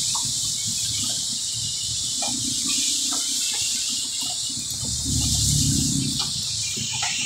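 Heavy rain beating on a small passenger vehicle's roof and windows: a steady hiss with a low rumble beneath.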